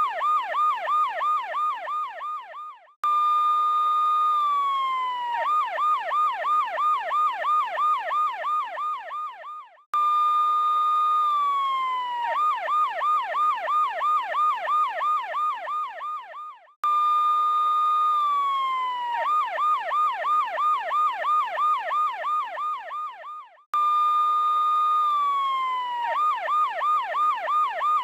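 Police car siren in a fast yelp of about three up-and-down sweeps a second. Every seven seconds or so it cuts out briefly, holds one high tone, then glides down in pitch before the yelp starts again.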